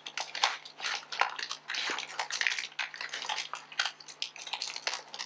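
A sealed paper mailing envelope being pulled and torn open by hand: rapid crinkling and crackling of the paper in quick, irregular bursts.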